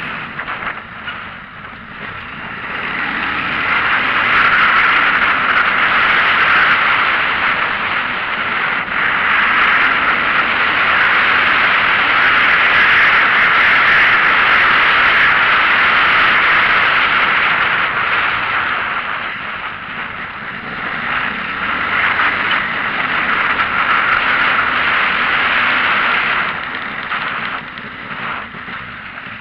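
Road and wind noise heard from inside a moving vehicle: a steady rushing hiss that swells about three seconds in, eases for a moment around twenty seconds, rises again, and drops back near the end.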